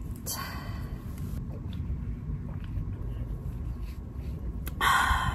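Wind making a steady low rumble against the tent and microphone, with two brief higher hissing noises, one just after the start and one near the end.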